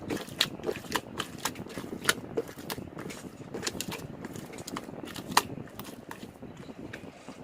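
Sherbet jelly slime being squeezed and poked by hand, giving irregular sharp wet clicks and pops, several a second, with a couple of louder pops.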